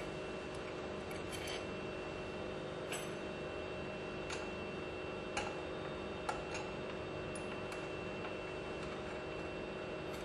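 Hand tools clinking on the metal parts of a progressing cavity pump as it is dismantled: about six sharp, irregular clicks over a steady background hum.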